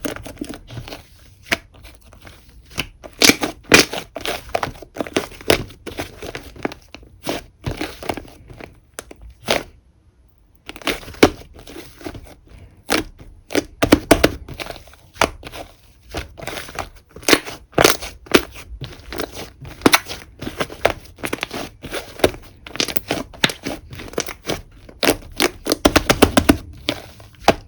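Whipped-cream slime being squished and worked by hand: a dense run of sticky pops and crackles, with a short pause about ten seconds in.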